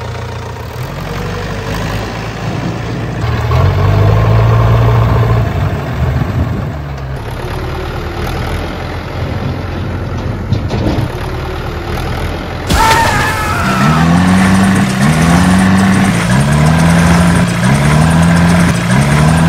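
Tractor engine running steadily, rising in pitch a few seconds in. Later it switches to a repeated rising rev, about once a second.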